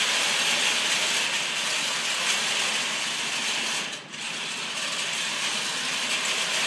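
FRC competition robot driving on carpet, its drive motors and gearboxes giving a steady mechanical whir. The whir dips briefly about four seconds in.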